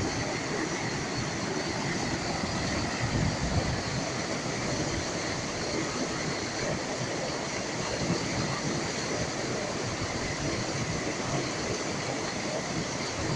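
Mountain stream rushing over boulders in a small cascade: a steady, even rush of white water.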